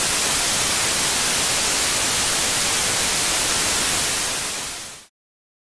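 Television static: a steady, loud hiss of white noise that fades away about four and a half seconds in.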